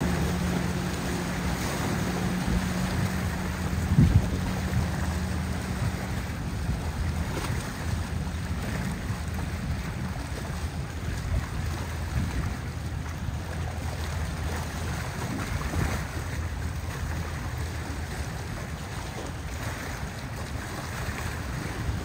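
Motorboat engines droning steadily as powerboats run past at speed, the hum strongest in the first half, over the wash of waves and wind buffeting the microphone. A brief thump sounds about four seconds in.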